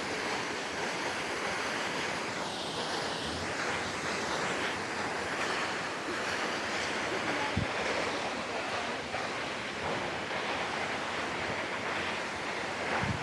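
Steady rushing roar of a waterfall, mixed with wind buffeting the microphone, with a brief low bump about two thirds of the way through and another near the end.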